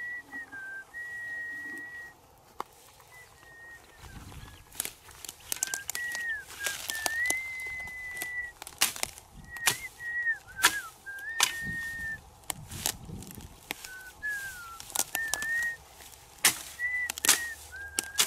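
A hoe blade chopping into grassy soil, a quick irregular run of sharp strikes starting about five seconds in. Under it, someone whistles a slow tune of long held notes and short slides.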